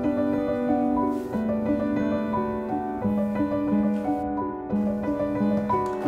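Background piano music: a melody of held notes over a steady accompaniment.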